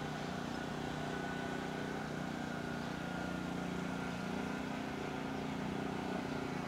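Small petrol engine of a walk-behind aircraft tug running steadily as it moves a light aircraft.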